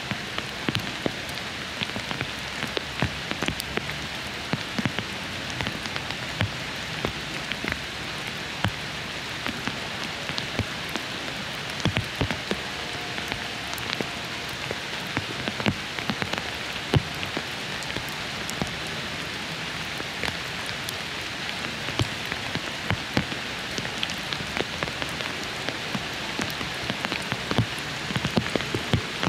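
Steady rain falling, a constant hiss with many separate drops ticking sharply close by.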